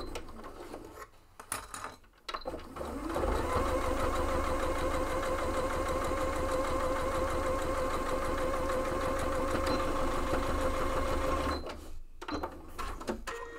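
Electric sewing machine stitching through layered cotton fabric. It stops briefly, starts again about two and a half seconds in with a rising whir, runs steadily for about eight seconds, then stops, followed by a few clicks.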